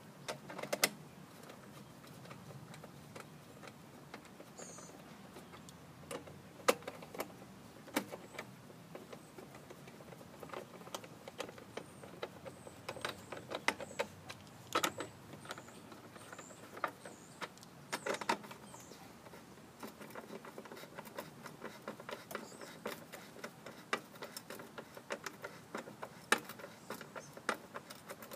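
Scattered light clicks and metallic clinks of a screwdriver and bolts as a recoil starter is fastened onto a Craftsman M100 lawn mower's Briggs & Stratton engine; the engine is not running.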